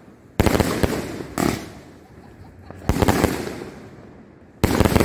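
A 120-shot firework cake firing: four loud shots about one to one and a half seconds apart, each a sudden report with a few sharp cracks that dies away over about a second.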